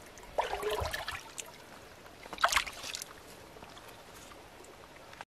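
Hands splashing in shallow muddy water while groping for fish: a short splash about half a second in and another about two and a half seconds in, with a faint trickle between.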